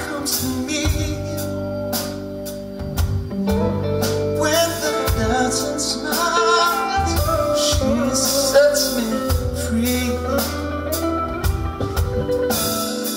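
Live band playing: a man singing over electric guitar, bass and drum kit.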